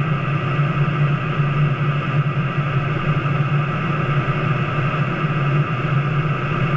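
Steady drone of an A-10 Thunderbolt II's twin TF34 turbofan engines heard from inside the cockpit in flight: a low hum under a high, even whine, with air rushing past the canopy.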